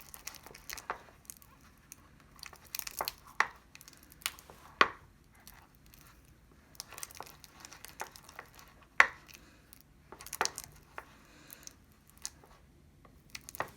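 Thick glue-and-cornstarch slime paste being stirred, with irregular short sticky clicks, smacks and scrapes. The loudest come about three, five, nine and ten seconds in.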